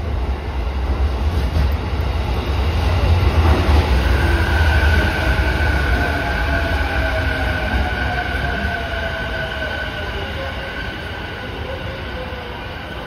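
A JR East E233-series electric train pulls into the platform and slows to a stop, its wheels and running gear making a heavy low rumble that eases as it slows. A high steady squeal sounds through the middle, and a whine falls in pitch as the train decelerates.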